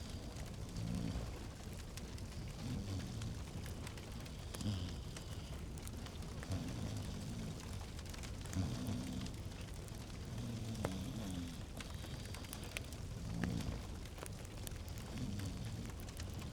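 Fireplace fire crackling, with scattered sharp pops over a low, wavering rumble of the flames.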